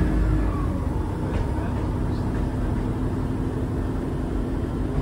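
Diesel engine of a Class 150 Sprinter diesel multiple unit running with a steady low drone that holds one pitch, heard from inside the passenger carriage.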